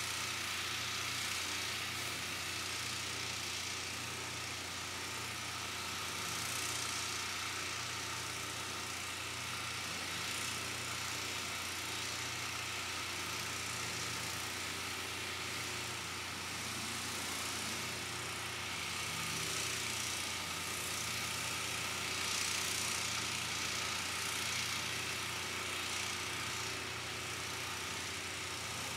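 Steady low machine hum with a constant hiss over it, unchanging throughout.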